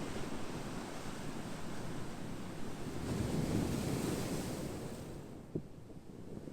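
Ocean waves breaking and washing on a shore, one wave swelling about halfway through, then ebbing away.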